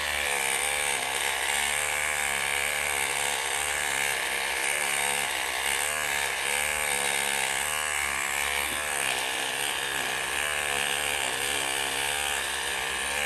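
Handheld electric dreadlocks machine running continuously, its motor's pitch wavering up and down as it works through the hair.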